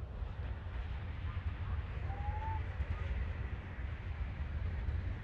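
Steady low outdoor rumble, with one short rising chirp-like call about two seconds in.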